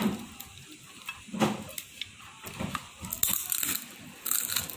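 Crisp grilled dried Alaska pollock being torn and crunched: a handful of short, dry crunches about a second apart.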